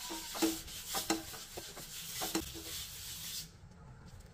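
Folded paper tissue rubbed in strokes over an oiled marble-coated nonstick frying pan, wiping the oil into a thin film. The rubbing stops about three and a half seconds in.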